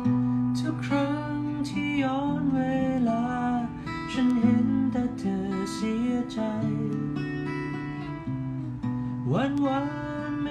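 Strummed acoustic guitar with a man singing over it; near the end his voice slides up into a held note.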